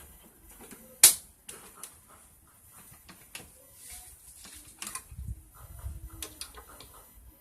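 Sharp clicks and taps of hand tools and metal motorcycle engine parts being handled during disassembly: one loud click about a second in, then scattered lighter knocks and taps.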